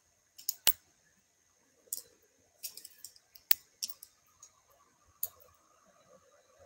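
Beaded necklaces, with glass and stone beads and metal spacers, clicking against each other as they are handled: about seven separate sharp clicks, the loudest ones in the first four seconds.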